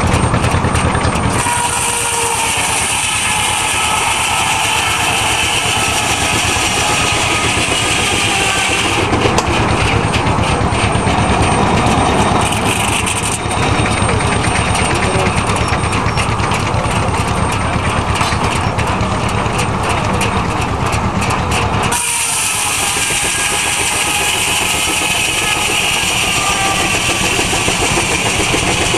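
Steam-powered sawmill running: a 5-foot circular saw blade with the steam traction engine that drives it, a loud continuous machine noise. The sound changes character abruptly several times.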